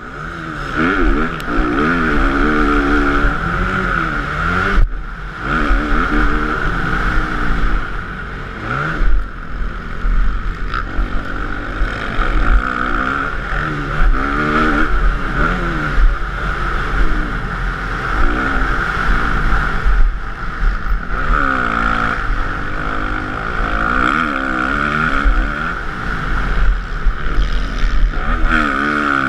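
Motocross bike engine heard from the rider's helmet camera, revving hard and easing off again and again as it shifts through the gears around the track, so the pitch keeps rising and falling.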